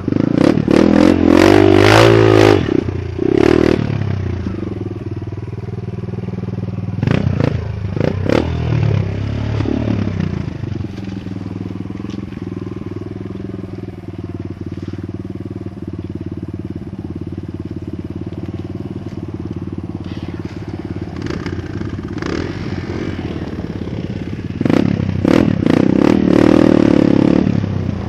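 Kawasaki KLX trail bike's single-cylinder four-stroke engine revving with throttle blips for the first few seconds and again around eight seconds in, then settling to a steady idle through the middle before revving up again near the end. Knocks and rattles of the bike over rough ground come with the revving.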